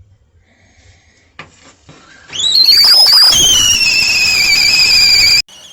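Stainless steel stovetop kettle whistling at the boil: a hiss swells into a loud two-note whistle that rises at first, then sags slowly in pitch. It cuts off abruptly near the end and carries on much quieter.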